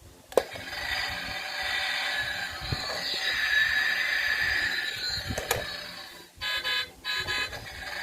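Toy military truck's built-in sound module, through its small speaker: a button click sets off an electronic engine-running effect, and another click comes partway through. Near the end, two short buzzy horn-like beeps.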